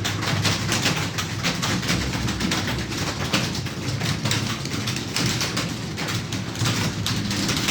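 Computer keyboards clattering with rapid, irregular keystrokes as several people type at speed, over a low steady hum.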